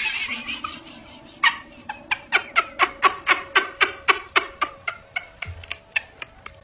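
A pet animal calling: a loud wavering cry at the start, then a quick run of short, evenly spaced yips, about four a second, that fades toward the end.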